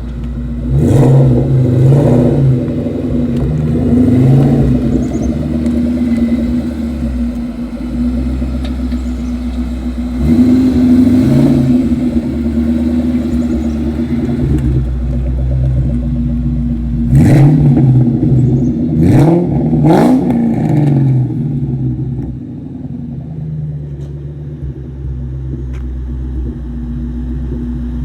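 Terminator Mustang SVT Cobra's supercharged 4.6-litre V8 accelerating hard in several runs, revs rising and falling back at each gear change, then settling to a lower, steady drone near the end.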